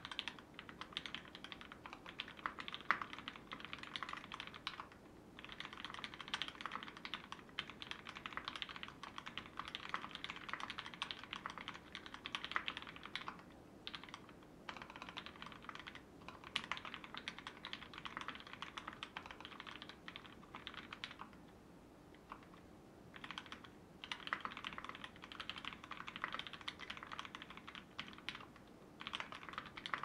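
Typing on a Duck Octagon v2 mechanical keyboard with lubed vintage Cherry MX Black linear switches on 55 g springs, a stainless steel plate and GMK keycaps. The keystrokes come in dense runs broken by short pauses, the longest about two-thirds of the way through.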